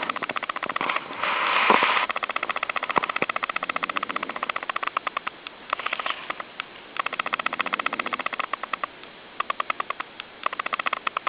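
Snoring-like animal call: runs of rapid, even rasping pulses, about ten a second, in bouts of one to a few seconds with short pauses, denser and louder about a second in.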